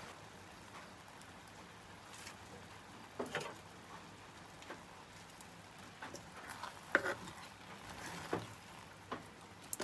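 Thick leafy curry cooking in a clay pot over a wood fire: faint hiss with scattered soft clicks and pops, then a wooden spoon stirring the curry and knocking against the pot in the second half.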